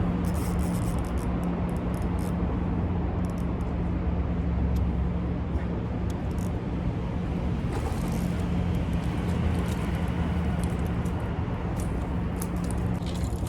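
Steady low mechanical hum with an even tone over a constant outdoor noise bed, with scattered faint high ticks.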